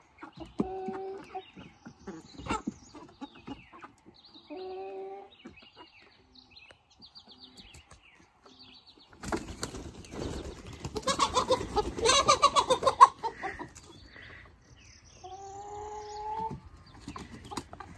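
A flock of young Light Brahma chickens calling as they come out of the coop, with a few drawn-out calls. About nine seconds in comes several seconds of loud, fluttering wing flapping.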